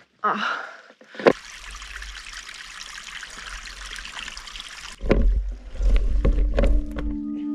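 A steady, even rushing hiss like running water cuts in abruptly a little over a second in. From about five seconds in, low rumbling and knocks on the bike-mounted camera take over, and steady low music tones come in near the end.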